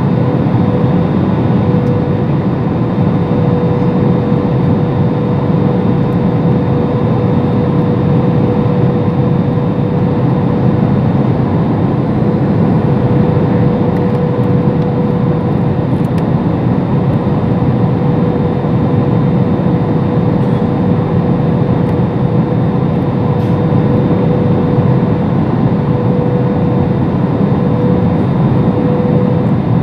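Steady cabin noise of a jet airliner on approach to landing: engine and airflow noise with a steady whine.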